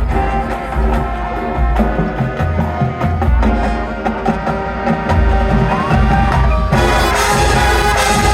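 High school marching band playing, with wood block and drum clicks over held tones and regular bass drum hits; near the end the full band comes in and the sound grows brighter and fuller.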